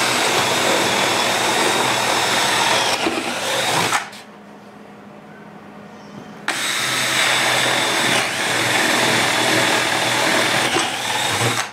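Cordless drill boring through a plywood board with a long twist bit, running in two stretches of about four and five seconds with a pause of a couple of seconds between them.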